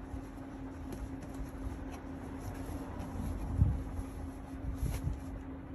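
Rustling and soft handling of a stroller's fabric canopy worked by hand, with a few light knocks, over a steady low hum.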